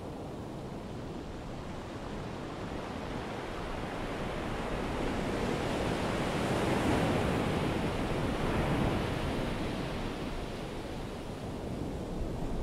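Ocean surf: a wave swells up to a peak about halfway through and then washes back and fades.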